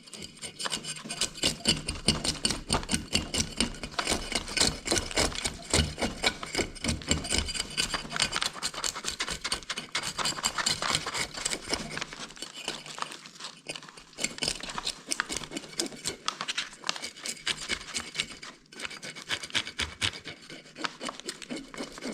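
Fish scaler rasping the scales off a panfish in a rapid run of scraping strokes, thinning out somewhat over the second half.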